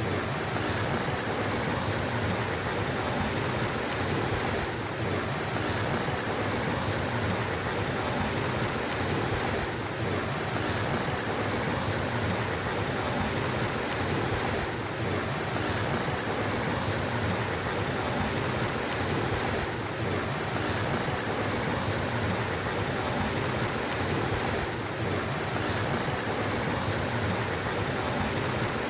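Flowing water rushing steadily, with a slight dip about every five seconds.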